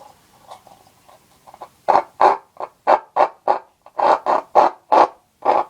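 Paper cup noisemaker, the cup cut shorter, with a ribbon threaded through its bottom and anchored by a toothpick, pulled in short strokes between the fingernails so the cup sounds out the rubbing. Faint squeaks at first, then from about two seconds in a quick run of about a dozen loud, clucking squawks, three to four a second.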